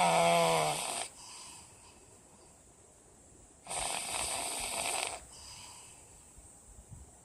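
Pug snoring in its sleep: two loud snores about three and a half seconds apart, each followed by a softer breath. The first snore carries a slightly falling whine-like note.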